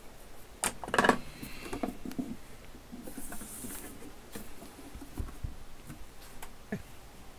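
Metal-cased desoldering station being handled and turned over on a bench: scattered clicks and knocks, the sharpest about a second in with a short metallic ring, a brief scraping hiss midway, and a low thump as the unit is set down.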